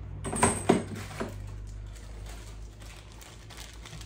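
A few light clinks and rattles of small bagged parts being picked out of a pile within the first second or so, over a steady low hum.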